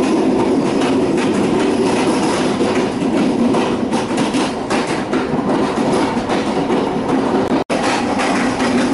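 Passenger train running along the rails: a steady, loud rumble with wheels clattering over the track. The sound cuts out for an instant near the end.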